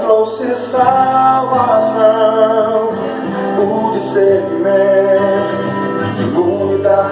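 Recorded Brazilian gospel pop song playing: a band with a male voice singing over it.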